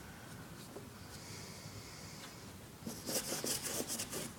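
A wet magic eraser (melamine foam sponge) scrubbing sneaker leather. After a quiet stretch, a run of quick scratchy rubbing strokes starts about three seconds in.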